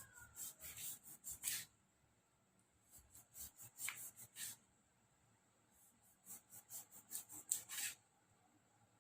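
Faint, quick scraping strokes in three short runs with pauses of about a second between them, as limes are worked by hand for juicing.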